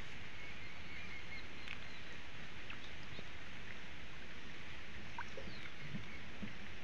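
Water swishing and lapping as a push net is worked through shallow floodwater by a man wading, over a steady outdoor hiss with a few faint bird chirps.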